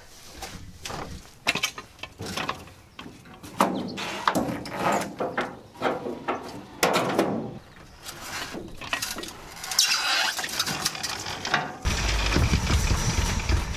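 Repeated clicks, knocks and scraping from dirt bikes and gear being loaded and strapped down. A low rumble comes in near the end.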